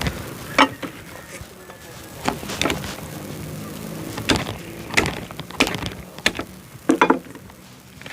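A run of sharp, irregular knocks and clatters, with a quick cluster of three about seven seconds in, like things being handled and set down during food preparation.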